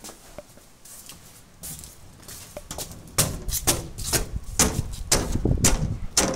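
Footsteps on pavement starting about three seconds in, roughly two a second, over a low rumble.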